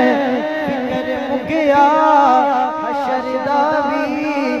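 Male naat reciter singing into a microphone, a drawn-out ornamented vocal line that bends and wavers in pitch, over a steady low drone.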